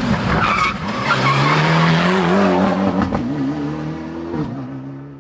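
Rally car engine at full throttle through a bend, its note climbing as it accelerates, then dropping and fading as the car draws away near the end.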